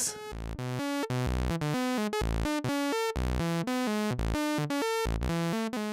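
Moog Mother-32 analog synthesizer voice playing a stepped, monophonic sequence from a Make Noise René sequencer, its pitches quantized to a chosen scale. Short notes come about four or five a second, jumping up and down in pitch.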